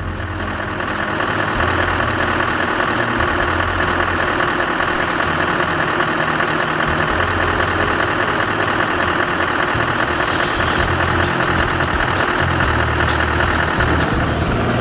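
Scania R620's V8 diesel engine idling steadily.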